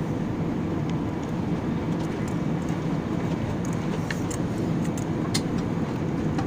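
Steady cabin rumble of an Airbus A320-216 airliner in flight on approach, the engines and rushing airflow heard from an economy seat, with a few faint light ticks about four to five seconds in.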